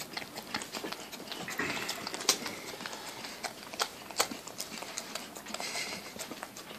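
A dog licking and smacking its mouth on peanut butter stuck to its tongue and palate, with irregular clicking smacks throughout.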